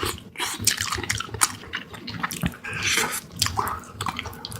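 Close-miked wet chewing and lip-smacking on spicy beef feet: a quick, irregular run of sticky clicks and smacks.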